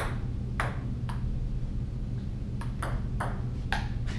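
Table tennis ball clicking off paddles and the table in a rally: sharp single ticks, a few early, a pause of about a second and a half, then a quicker run of them near the end. A steady low hum runs underneath.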